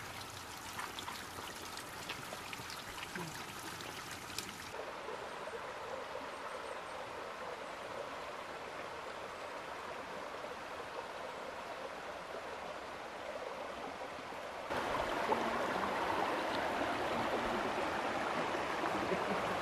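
Water trickling and dripping down a wet rock face, then a shallow rocky forest stream running over stones. The sound changes abruptly about five seconds in and again about fifteen seconds in, where the stream gets louder.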